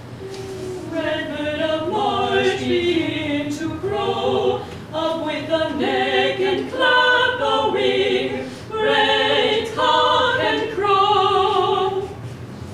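A small group of voices singing unaccompanied, a slow melody of long held notes sung phrase by phrase with brief breaks between.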